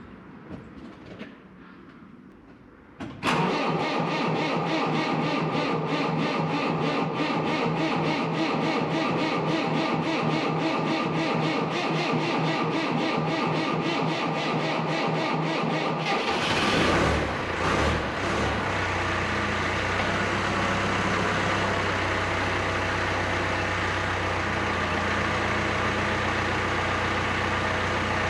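Skid steer's diesel engine cranked on the starter for about 13 seconds in a rhythmic chugging before it catches and settles into a steady idle. It is a cold, reluctant start: the engine is cranked so long that the starter cables start to smell of melting insulation.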